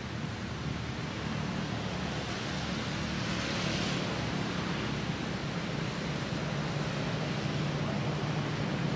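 Steady rushing outdoor background noise with a low hum underneath.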